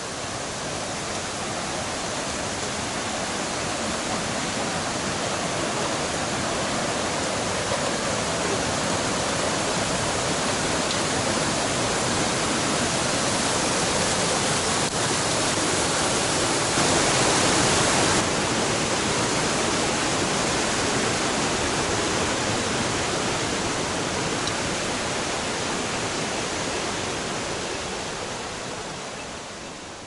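Rushing whitewater of a mountain stream tumbling over boulders, a steady roar that grows louder to a peak a little past halfway, then eases off and fades near the end.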